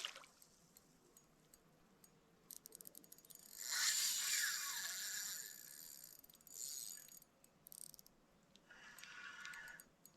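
Handling noises from a landed pike and fishing tackle: quick rattling clicks, with a louder rustling burst about four seconds in and smaller ones near the end.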